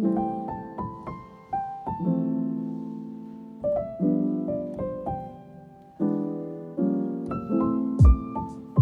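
Background piano music: notes and chords struck and left to ring, with two loud, sharp low hits near the end.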